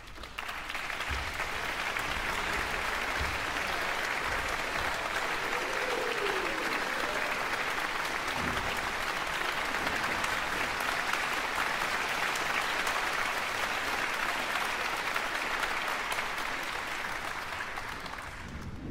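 Concert audience applauding: dense, steady clapping that starts just after the beginning and dies away near the end.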